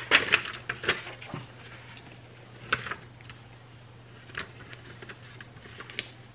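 Sheets of paper rustling and crinkling as they are handled and shuffled, in short bursts: loudest right at the start, then again about three seconds in and a few times after, over a faint steady low hum.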